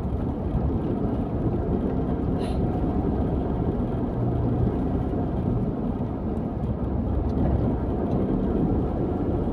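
Car being driven along a road, heard from inside the cabin: a steady low rumble of engine and tyre noise.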